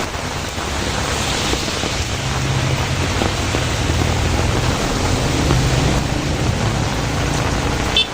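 Heavy rain falling steadily, with an uneven low rumble underneath.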